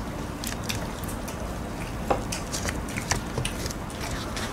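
Scattered small crunches and clicks of fried chicken being eaten and handled at the table, close to the microphone.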